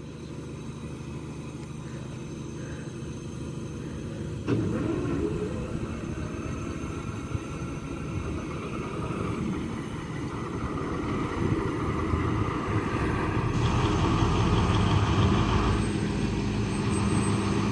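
Diesel engines of a pair of Class 73/9 electro-diesel locomotives working as the train departs: a steady hum first, then a sudden step up about four and a half seconds in as the engine note rises, with the sound building and a further rise about thirteen seconds in as they pull away under diesel power.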